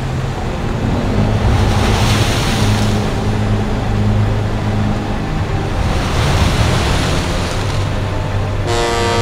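Sea waves rushing against a ship's hull with wind, surging twice, over a steady low engine hum from the pilot boat alongside. Near the end a sustained pitched tone comes in.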